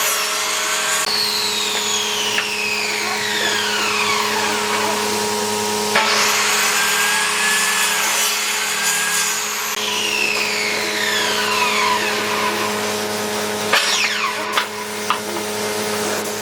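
Electric power tool working wood: a steady motor hum under a rough grinding hiss, with a whine that slowly falls in pitch twice and a few sharp ticks near the end.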